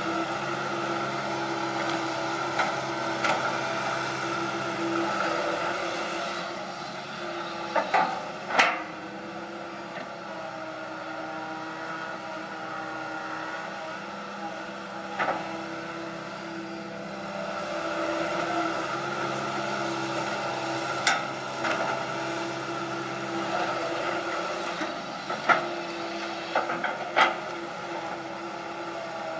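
Komatsu PC160 hydraulic excavator's diesel engine running under load as it digs and dumps soil, swelling and easing with the digging cycle. Several sharp clanks come from the bucket and arm.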